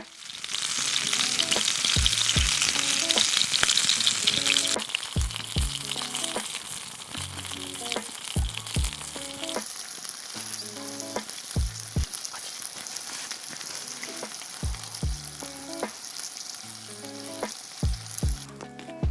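Food sizzling as it cooks over a campfire, a dense crackling hiss that is loudest for the first few seconds and then settles to a steadier sizzle.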